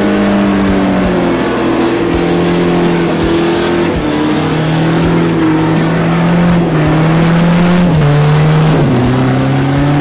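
4x4 pickup truck engine working hard as it climbs a muddy forest track, with tyre and mud noise, under background music whose notes step down in pitch.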